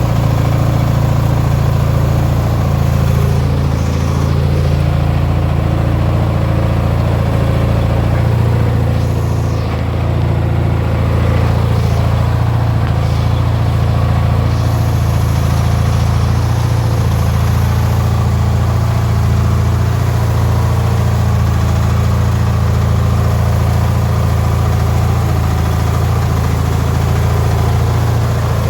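18-horsepower Briggs & Stratton twin-cylinder engine of a modified Craftsman riding mower running steadily, a continuous low engine note.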